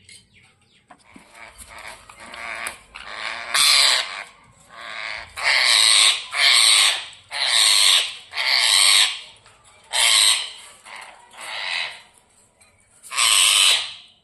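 Indian ringneck parrot squawking harshly, about a dozen rasping calls in a ragged series that get louder after the first few seconds. These are agitated squawks of a bird in a fight.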